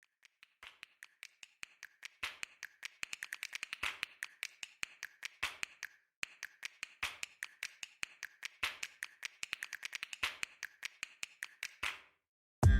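A fast, uneven run of sharp clicks, several a second, with a short break about halfway through, stopping just before the end.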